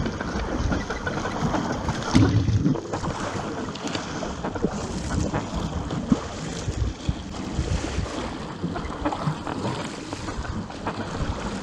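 Wind buffeting the microphone over water splashing and rushing against a surfski as it is paddled, with a strong gust about two seconds in.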